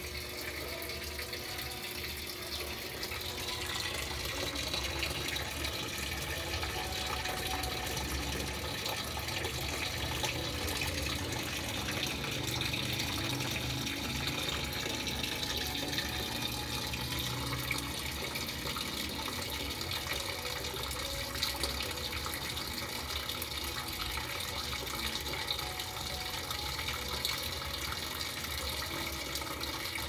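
Whirlpool 17 kg top-load washing machine filling with water: a steady rush of water pouring into the tub.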